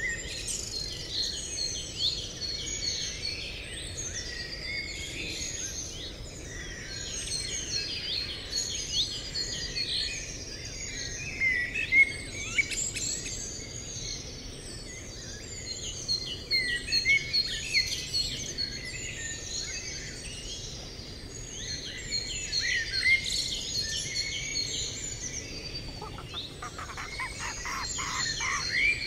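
Birds chirping and twittering without a break, many short calls overlapping. A rapid rasping rattle joins in near the end.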